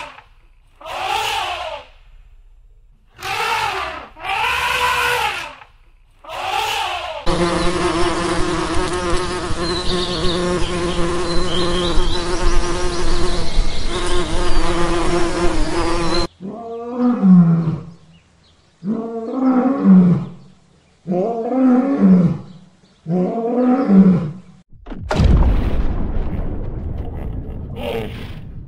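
Short animal calls about once a second. Then bumblebees buzzing steadily for about nine seconds. Then five deep, drawn-out animal calls about a second apart.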